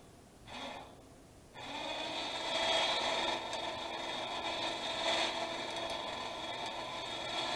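12-volt electric winch motor, run off a battery charger for a first test, reeling in its cable: a brief burst, then running steadily with a whine from about a second and a half in.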